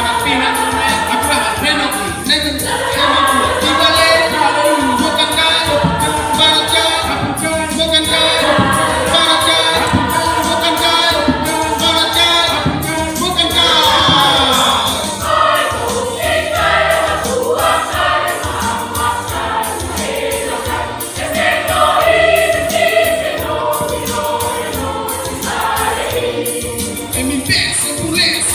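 Church choir singing a hymn in parts, several voices together throughout.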